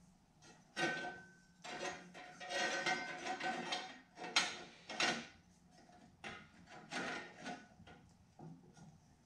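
Cast aluminium spacer plate clinking and scraping against upright metal bars as it is worked into position by hand, in irregular clattering bursts. There is a brief ringing note about a second in and a couple of sharper knocks around the middle.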